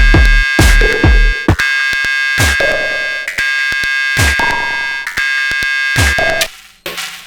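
Sonic Potions LXR-02 digital drum machine playing techno. A busy run of punchy kick drums, each falling in pitch, thins after about a second and a half to a single kick roughly every two seconds. A sustained high ringing tone sits above the kicks and fades out near the end.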